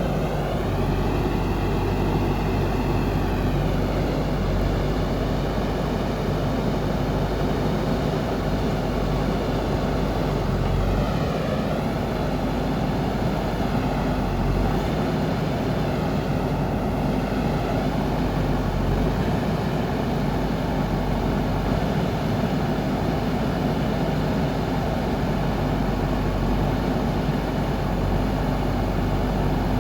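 Diesel engine of a JCB backhoe loader running steadily while it digs and loads mud, its pitch dipping and rising a few times as the engine is worked harder and eased off.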